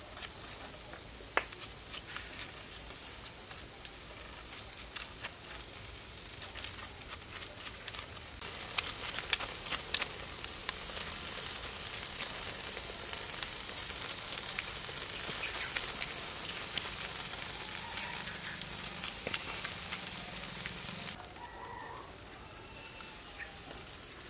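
Pig head sizzling and crackling on a grill as a sauce baste is brushed over it. The sizzle grows louder about a third of the way in and drops back near the end.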